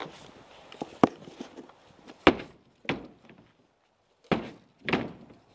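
Airsoft gun firing single shots at a wooden cabin, the BBs striking the plank wall in sharp thunks: six knocks, irregularly spaced about a second apart.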